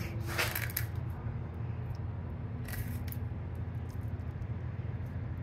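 A fillet knife slicing through a fish, two short rasping strokes about half a second and nearly three seconds in, over a steady low hum.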